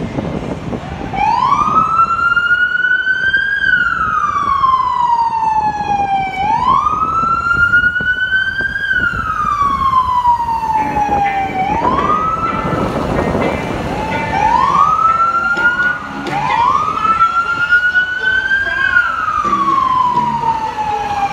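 Police car siren wailing, each cycle rising quickly and then falling slowly over about five seconds. Near the middle the pattern breaks into a few short rises, with a burst of noise.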